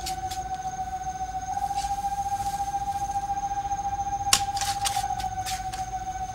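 Shovel digging into earth, with scrapes and a sharp strike of the blade about four seconds in. A steady high whistling tone runs underneath throughout.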